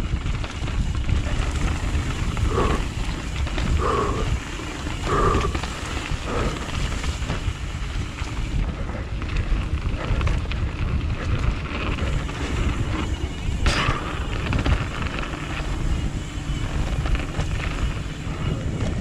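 Wind rushing over the microphone with a steady rattle, as of a mountain bike rolling fast over rough trail. Four short tones sound about a second apart in the first seven seconds.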